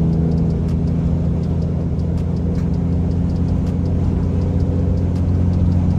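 Scania truck's diesel engine droning steadily at cruising speed, heard inside the cab, with road noise.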